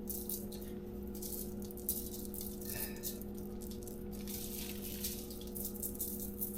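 Dry barbecue rub being shaken from a plastic shaker bottle, a light irregular rattle of the granules, over a steady low hum.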